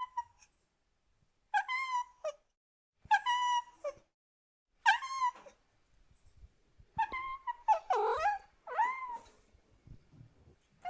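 A cat crying out again and again: about seven short, high-pitched calls with pauses between them, the later ones rising and falling in pitch and coming closer together.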